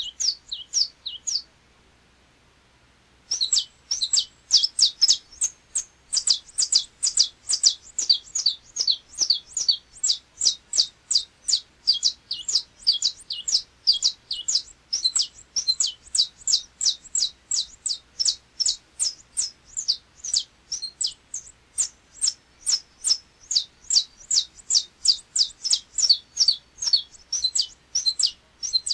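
Saffron finch (canário-da-terra-verdadeiro) singing its 'açoite repicado' song: a fast series of short, high, whip-like notes, each sweeping downward. The song breaks off for a second or two near the start, then runs on in a long, unbroken volley of several notes a second.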